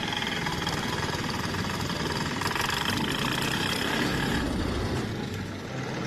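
A machine's engine running steadily, with dense rattling noise over a low rumble.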